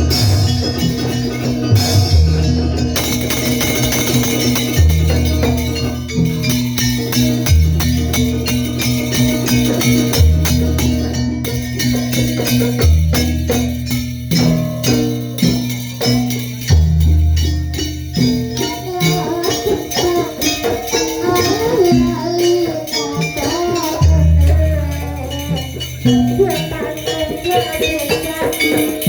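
Live Banyuwangi jaranan ensemble music: a dense, steady jingling percussion over deep low strokes every few seconds, with a wavering melody line entering about two-thirds of the way through.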